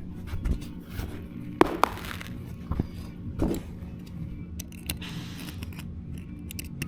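A utility knife being worked into a carpet tile: a few sharp knocks and a soft scrape of the blade through the tile's backing, over faint background music.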